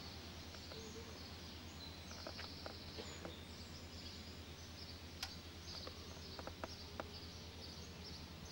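Faint outdoor ambience with birds chirping, over a steady low hum and a few light ticks.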